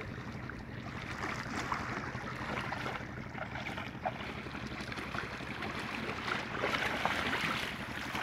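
Wind on the microphone over lapping shallow water, with uneven surface splashing from a hooked fish thrashing close in among the rocks, busiest near the end.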